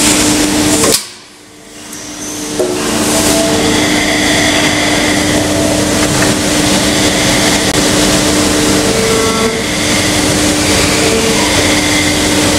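Plastic injection molding machine running with a steady hydraulic-pump drone and hum. The sound drops away sharply about a second in and builds back over the next second or so, with a light knock.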